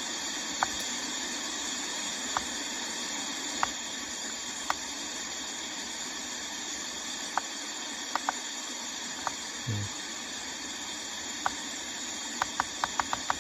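XKX sound machine clock's speaker playing steady white-noise hiss. Short ticks from its buttons being pressed come every second or two, then in a rapid run of about eight a second near the end as a button is held to step through the timer settings.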